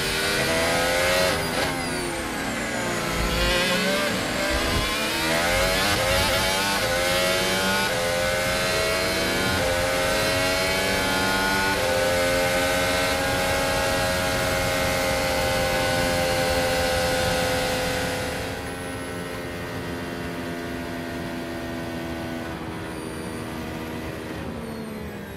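Onboard sound of Mercedes Formula 1 cars' turbocharged V6 hybrid engines at full throttle on a qualifying lap, two laps' sound overlaid. Pitch steps with the gear changes and dips as they brake and downshift a couple of seconds in, then holds a long steady high note down the straight. About two-thirds of the way through, one engine drops out and the sound gets quieter.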